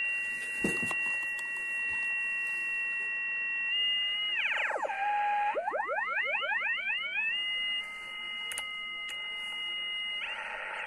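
Kenwood TS-530S receiving a signal-generator carrier near 7 MHz as a steady whistle with overtones, the beat note of the received carrier. About halfway through, the tuning dial is turned and the whistle glides down, then rises in a quick run of upward sweeps before holding steady again, and it glides once more near the end. A short knock sounds about a second in.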